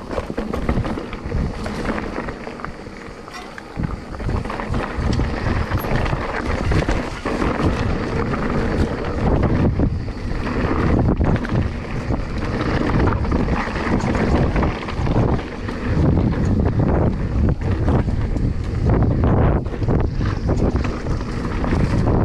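Wind rumbling on an action camera's microphone during a mountain-bike descent, mixed with the clatter of the tyres and bike over a stony trail. It gets louder from about four seconds in.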